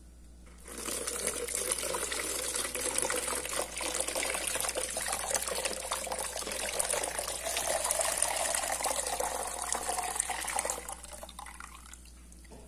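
Garlic water poured through a fine plastic mesh sieve into a plastic jug. A steady splashing pour starts about a second in, its pitch rising as the jug fills, and thins to a trickle near the end.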